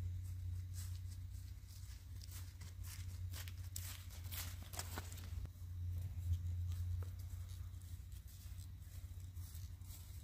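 Irregular rustling and light clicks from something being handled, over a steady low rumble.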